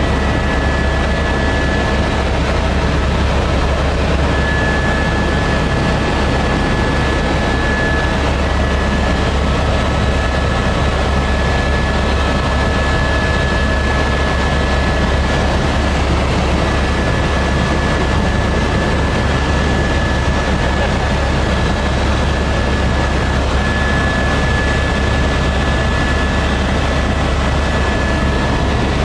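Helicopter engine and rotor running steadily: a constant low drone with a thin, steady high whine over it.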